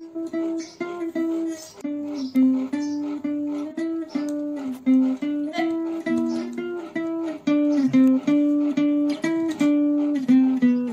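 Background music: a plucked guitar melody, single notes picked about two or three a second, each ringing and fading before the next.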